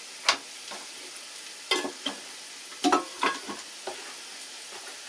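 Sliced Jerusalem artichokes frying in fat in a pan, with a steady sizzle and several sharp pops and crackles.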